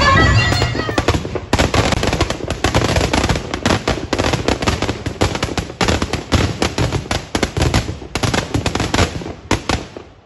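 Firecrackers packed into a burning Dussehra effigy going off in a dense, rapid crackle of bangs. The burst thins to a few separate cracks near the end.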